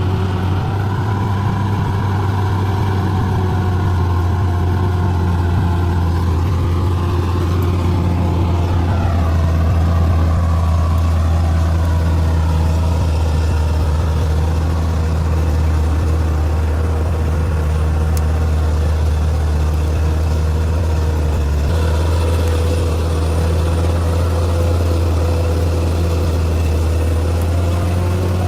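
Diesel engine of a heavy earthmoving machine running steadily, with a deep, even hum. Higher whining tones waver in pitch about a third of the way through.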